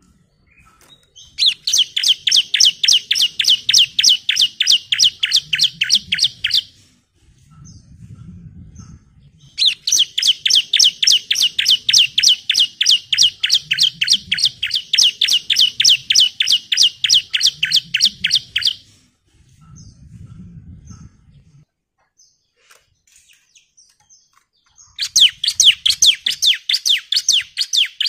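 Bar-winged prinia (ciblek) singing long runs of rapid, evenly repeated high notes, about five a second, in three bouts with short pauses between them.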